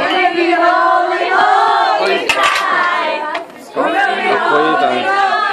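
A group of people singing together, holding long notes, with a short break about three and a half seconds in.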